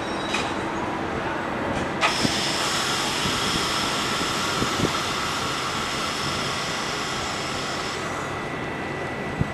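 Subway train standing at an elevated station, its onboard equipment running with a steady hum. From about two seconds in until about eight seconds a steady high whine sits over it, with a few short clunks.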